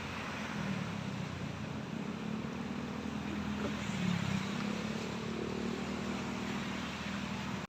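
Motor vehicle running steadily, a low engine hum under road and wind noise.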